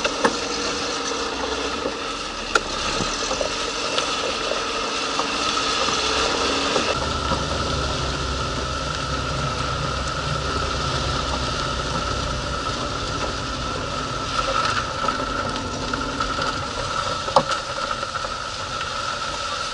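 Ford Focus 2 driving over a rough road, heard from the rear of the car: steady road and engine noise, deepening about seven seconds in, with a few sharp knocks from the rear suspension. The owner puts the knocking down to worn rear control arms and silent blocks, or the rear anti-roll bar links.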